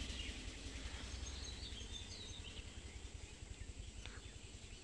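Faint outdoor ambience: a steady low rumble with a few faint, short bird chirps, and one soft click about four seconds in.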